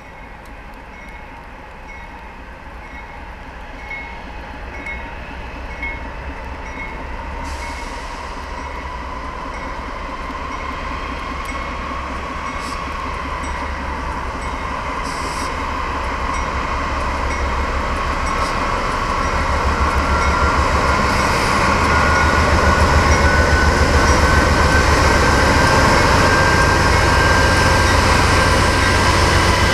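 GE C44-9W diesel locomotives hauling a double-stack train, approaching and passing close by and growing steadily louder. A whine slowly rises in pitch, and a deep engine rumble grows strong in the second half.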